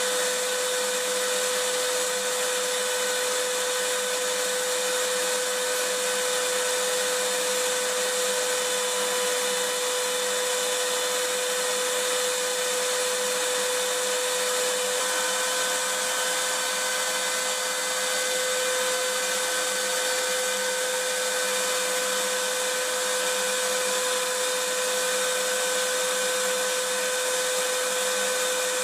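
Vacuum cleaner running steadily, its motor giving a constant hum with a rushing hiss of air over it, no change in speed.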